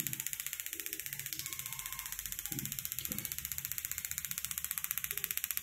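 Toyota stick-type ignition coil, driven by a coil tester, firing a spark plug in a rapid, even train of sharp ticking snaps: the coil is sparking steadily, the sign that it works.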